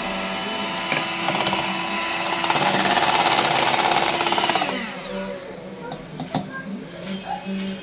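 Electric hand mixer running, its beaters churning thick cream in a steel vessel to bring out butter for ghee. The motor grows louder partway through, then winds down and stops about five seconds in, followed by a few light knocks.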